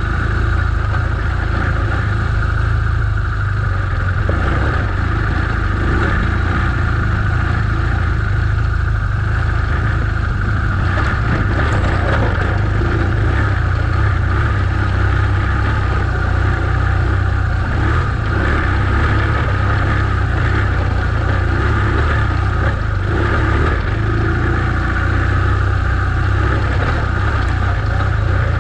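BMW R1200GS Adventure's flat-twin boxer engine running steadily under load as the motorcycle climbs a rough dirt track.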